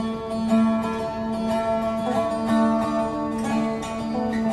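Instrumental background music over a steady held note.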